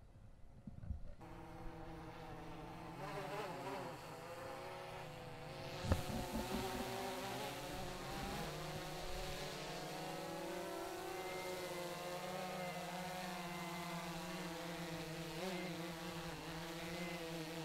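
Quadcopter drone's propellers buzzing in flight, the pitch wavering as the drone manoeuvres and hovers. A single thump about six seconds in.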